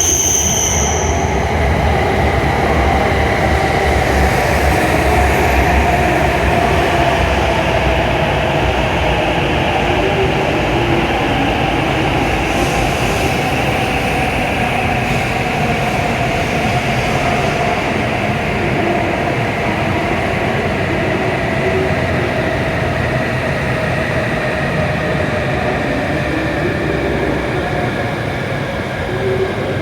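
An E7 series Shinkansen trainset runs into the station and slows, with a steady rumble and tones that fall slowly in pitch as it brakes. A brief high tone sounds right at the start.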